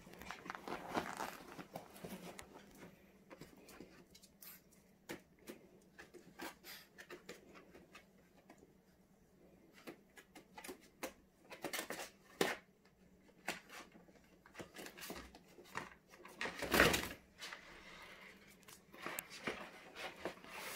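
A French Bulldog puppy moving about a small room: scattered light clicks, scuffs and rustles, with a louder rustling scuffle about 17 seconds in.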